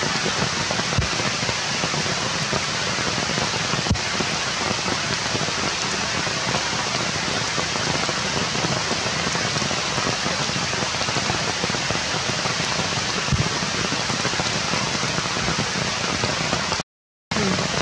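Steady rain falling on forest foliage, an even hiss with a few louder single taps of drops. The sound drops out for a moment near the end.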